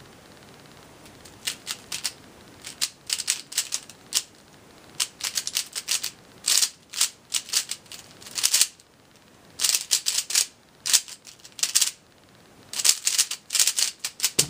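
Zhanchi 3x3 speedcube turned fast during a timed solve: quick bursts of plastic clicking and clacking that begin about a second and a half in, broken by short pauses.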